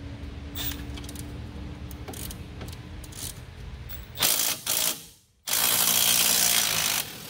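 Cordless ratchet spinning out a 14 mm knuckle bolt while a wrench holds the other side: a short run about four seconds in, then a steady run of about a second and a half that stops near the end.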